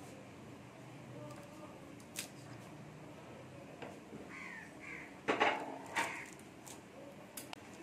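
A crow cawing several times in the second half, short harsh calls, the loudest about five and a half seconds in, with a couple of faint clicks earlier.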